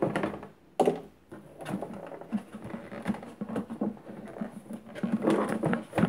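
Hands working in a hard blow-moulded plastic carry case, making irregular clicks, taps and light knocks of plastic on plastic, with a louder knock just under a second in.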